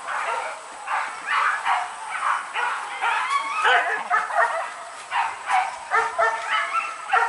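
Hunting dogs barking and yelping in quick, high-pitched yaps, several dogs overlapping, giving voice on the chase during a wild boar hunt.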